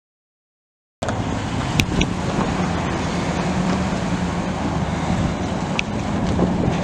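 Ford F350's 6.2-litre gas V8 running steadily at idle. It cuts in suddenly about a second in, after silence, with a few faint ticks over it.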